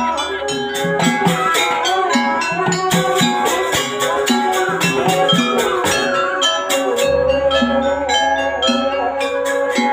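Live jaranan ensemble music: a held, bending melody line over a dense, steady rhythm of drum and metal percussion strikes.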